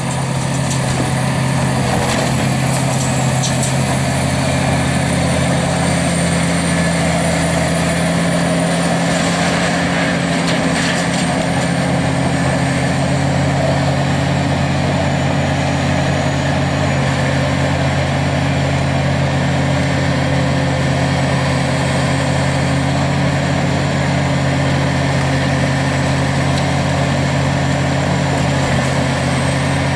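Heavy diesel engine of scrap-yard machinery running steadily, with a few short clanks about 3 and 11 seconds in.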